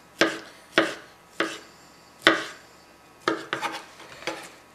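Kitchen knife chopping pineapple into chunks, each stroke ending in a sharp knock on a plastic cutting board: about eight cuts at an uneven pace, a little quicker near the end.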